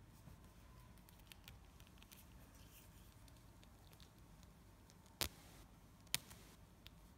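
Faint ticks and rustles of fingers handling fishing line while tying a nail knot, with two sharp clicks about a second apart near the end.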